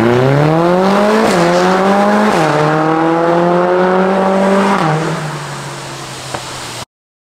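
Mercedes-AMG CLA45 S's turbocharged 2.0-litre four-cylinder, breathing through a Fi Exhaust valvetronic cat-back with catless downpipes, accelerating hard. The engine note climbs and drops at three upshifts, the first about a second in and the last about five seconds in, then fades as the car pulls away and cuts off suddenly near the end.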